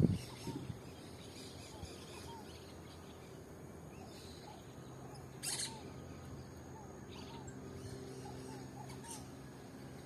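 A flock of parakeets calling from the trees: many short repeated chirps, with a sharper, louder screech about halfway through and another near the end. A low thump right at the start, with a faint steady low hum underneath.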